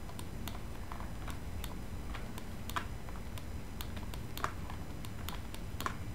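Scattered, irregular clicks of a computer keyboard and mouse being worked, a couple each second, over a faint low hum.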